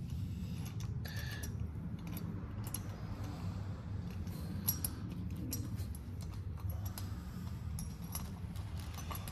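Small metal clicks and taps as rocker parts are worked loose by hand inside a Yamaha TT-R125 cylinder head, over a steady low hum.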